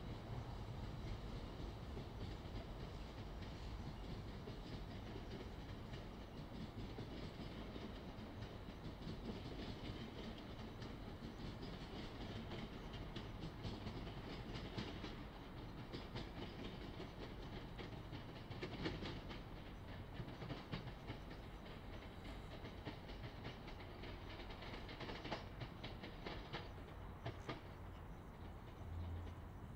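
A train passing along the tracks, its wheels clicking over rail joints in a long run of clicks that fades out near the end, over a steady hum of highway traffic.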